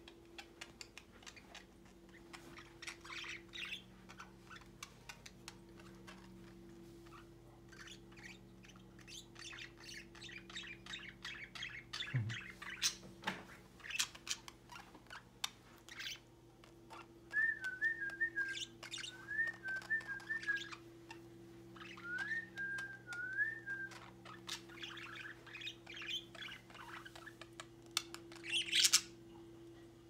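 A small flock of budgerigars chattering: a steady stream of quick chirps and chatter, with short warbling whistled phrases a little past halfway and a loud squawk near the end.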